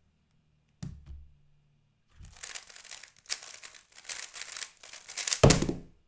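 Gan 11 M Pro 3x3 speedcube being turned very fast: a rapid plastic clatter of turns lasting about three seconds. It ends in a loud slap as the hands come down on the stackmat timer to stop it. A soft knock comes about a second in.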